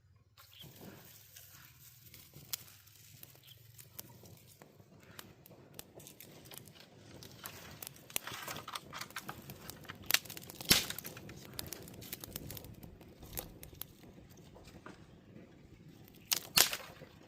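Dry corn leaves and husks rustling and tearing, with many sharp crackles and snaps as corn is picked by hand. The loudest snaps come about ten seconds in and again near the end.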